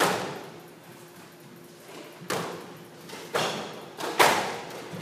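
Squash ball being hit by rackets and rebounding off the court walls during a rally: four sharp cracks with an echoing decay, the last, a little past four seconds in, the loudest.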